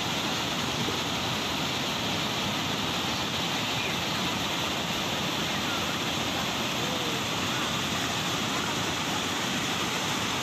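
Muddy floodwater in spate pouring over a low weir and churning below it: a steady, unbroken rush of water.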